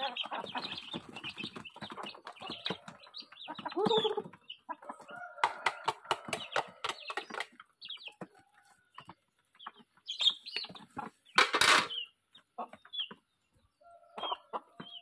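Chickens and chicks clucking and calling while they feed on scattered rice, with a run of quick sharp taps from pecking on concrete around the middle. There is a short noisy burst about eleven seconds in.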